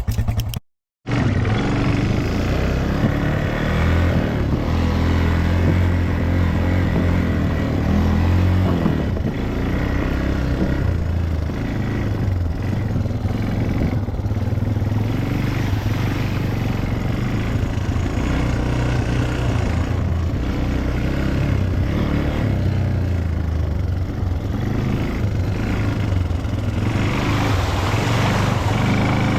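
ATV engine running as it is ridden off-road, its note shifting up and down with the throttle. The sound drops out completely for a moment about a second in.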